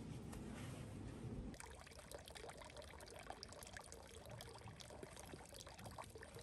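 Faint running or trickling water over a low rumble, with the trickle setting in about one and a half seconds in.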